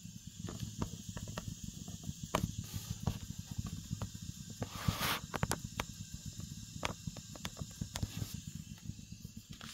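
Natural gas heater making a low rumble with irregular sharp clicks and pops, the noise it makes after cold air has entered the room. A brief hiss about five seconds in.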